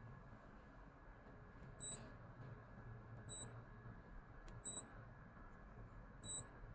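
Digital watch beeping: four short, high beeps about a second and a half apart, with a faint click just before the third.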